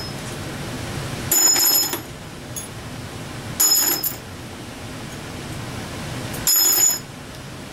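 Three short bursts of metallic clinking a couple of seconds apart, from hand tools and small steel valvetrain parts being handled while the rocker arms are taken off a GM 4.3 V6.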